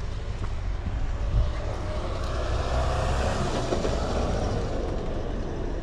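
A vehicle passing by, swelling to its loudest about three seconds in and then fading, over a steady low rumble.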